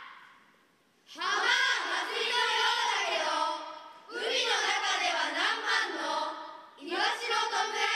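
A group of children's voices reciting a poem aloud in unison, in three drawn-out phrases that start about one, four and seven seconds in, with short breaks between.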